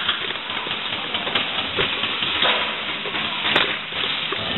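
Airsoft guns firing single shots: two sharp cracks about two seconds apart over a steady hiss of arena noise.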